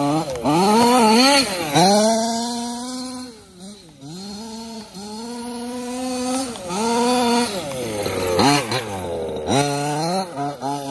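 Zenoah G320 two-stroke gas engine of a 1/5-scale Losi 5ive-T RC buggy running through a big-bore silenced exhaust. Its revs rise and fall repeatedly with the throttle, easing off briefly about four seconds in and again near the end.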